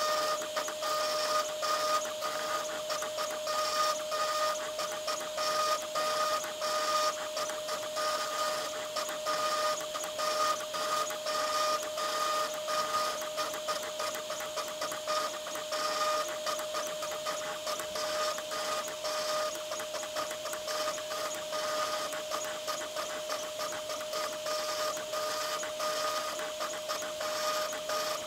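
Root 3 Lite 3D-printed CNC isolation-milling the traces of a copper-clad PCB. The spindle runs with a steady high whine, broken by rapid, irregular clicks as the stepper motors drive the bit through short engraving moves.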